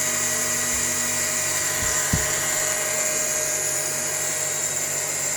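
Octa mini electric fabric-cutting machine running with a steady high motor whine. Two short low knocks come about two seconds in.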